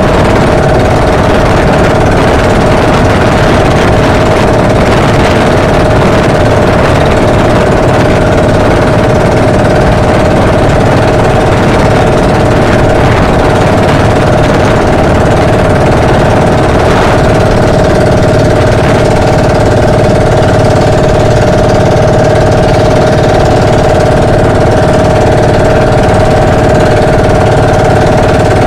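Outrigger boat's engine running steadily at a constant speed, loud, with one strong held tone and a rough rattle under it.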